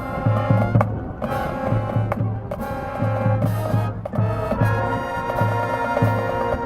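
High school marching band playing: brass chords held and changing over a low bass note that repeats about twice a second.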